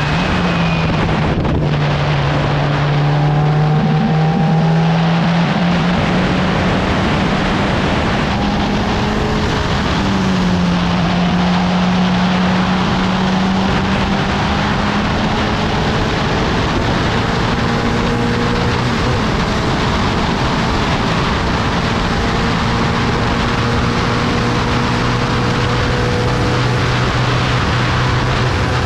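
Race car engine running hard on track, heard from the open cockpit with wind noise over it. Its pitch climbs slowly, falls just at the start and again about ten seconds in, then climbs again.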